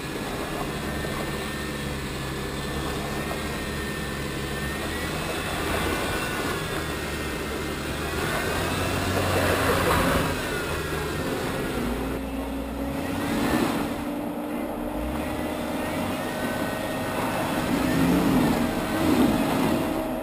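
Jeep Wrangler JK engine working under load as it crawls up a rocky ledge, its revs rising and falling, with louder surges about halfway through and near the end.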